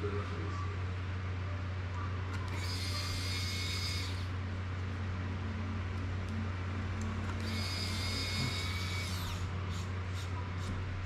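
Small pen-style electric screwdriver whirring in two short runs of about a second and a half each, driving screws into the drone frame, over a steady low hum.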